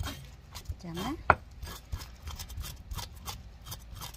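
Steel cleaver scraping scales off a small fish on a wooden cutting board: irregular scrapes and knocks of the blade against fish and board, the sharpest knock about a second in.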